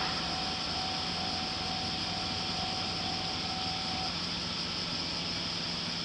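Steady background hiss with a faint low hum, once the passing train has gone; a faint thin steady tone sounds alongside it and stops about four seconds in.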